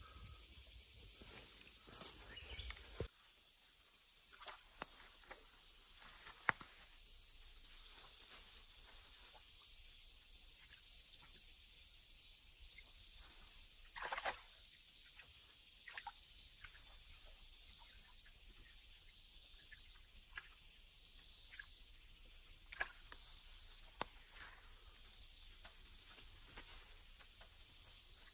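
Insects chirping in a steady, high, pulsing chorus, with scattered soft clicks and rustles. A low rumble stops about three seconds in.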